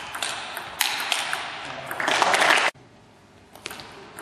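Table tennis ball clicking off bats and table in a rally, over a rising wash of hall noise that cuts off abruptly about two and a half seconds in. A few more ball clicks follow.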